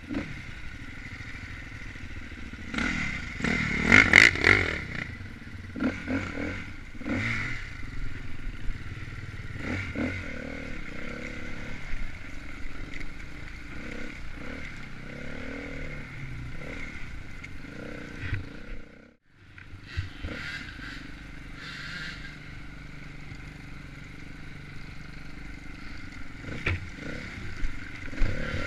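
Off-road dirt bike engine running and revving on an enduro trail, with clattering and scraping from the bike over rough ground. It is loudest about three to four seconds in and cuts out briefly about two-thirds of the way through.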